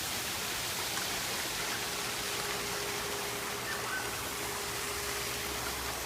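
Steady rushing of water from a mini golf course's waterfall or stream, an even hiss with no break, with a faint steady tone for a few seconds in the middle.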